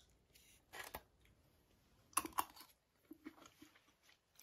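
Foil-wrapped burrito being handled at the table: a short crinkle of the foil about a second in, then a cluster of sharp crackling clicks just after two seconds, the loudest part, and a few soft knocks after it.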